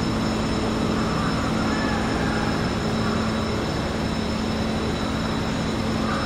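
Steady machinery drone: a constant rushing noise with a low hum and a few faint, steady high-pitched whines.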